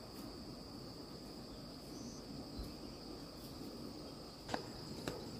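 Insects trilling steadily on one high note, with two sharp clicks near the end.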